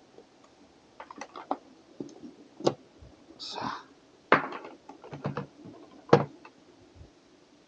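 Handling noises: an e-bike battery charger and its cables knocked, clicked and set down on a table, with three sharper knocks and a short rustle about three and a half seconds in.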